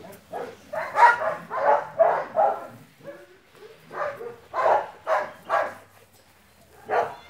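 A dog barking repeatedly in quick runs of short barks, pausing about three seconds in, with one last bark near the end.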